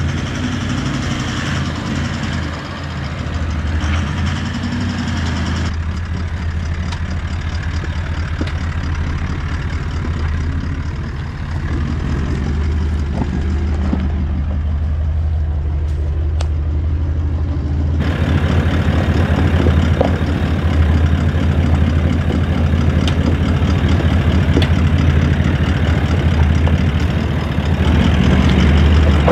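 Toyota LandCruiser 76's engine running at low revs as it crawls slowly over a rough dirt and rock 4WD track, with a few light clicks. It gets louder near the end.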